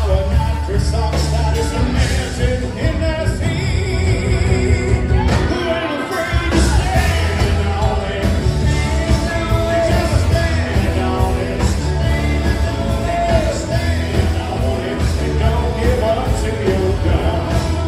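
Live rock band playing: drum kit, acoustic guitar and vocals. The bass end drops out briefly about six seconds in, then the full band comes back.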